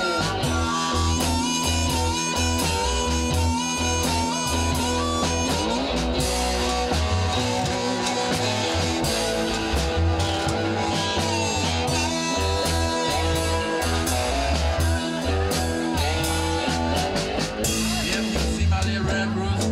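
Live blues band playing an instrumental passage: electric cigar box guitars and drums, with harmonica played into the vocal mic.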